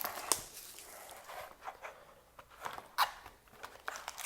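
Scattered rustles, taps and clicks of a trading-card hobby box being opened and handled, with a sharper click about three seconds in.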